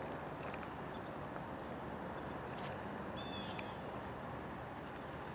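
Outdoor insect and bird ambience: a high insect buzz that stops about two seconds in and starts again near the end, with a short bird call a little past the middle, over a low steady rumble.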